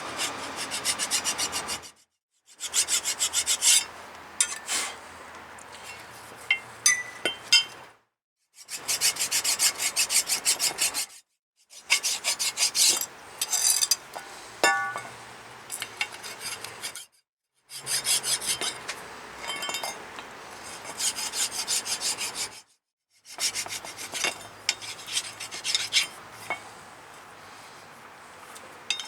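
Rapid back-and-forth scraping strokes of a hand tool on a brake caliper bracket, cleaning the pad contact points, in several bursts broken off by sudden silences.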